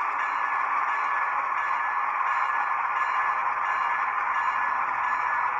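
Model CSX #3194 diesel locomotive running slowly along layout track: a steady, even whir with a faint constant high tone in it.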